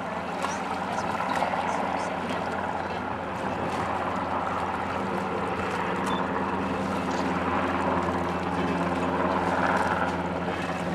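Twin-engine military helicopter hovering low over the sea, a steady drone of rotor and turbines with the hiss of its downwash on the water, growing a little louder after a few seconds. The lifeboat's engine may run underneath it.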